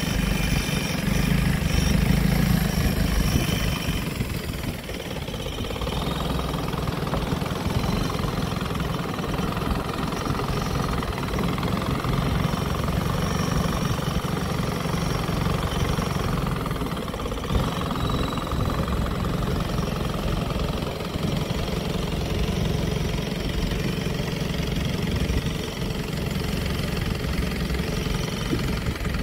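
Engine of a wooden longtail boat running steadily underway, with the sound of the boat moving through the water. It eases off briefly about five seconds in, then runs on.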